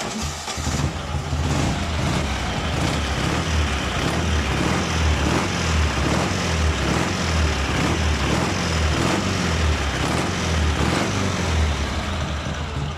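Two-cylinder motorcycle engine running with an even, pulsing exhaust note and no knock, its head-gasket gas blow-by on the left cylinder, which had sounded like a ringing knock, cured by a new aluminium head gasket.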